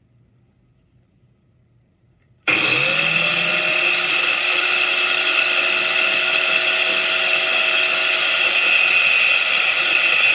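An electric angle grinder switches on about two and a half seconds in, spins up with a rising whine, then runs steadily at full speed while a small steel firing-pin blank is held against its disc to be ground.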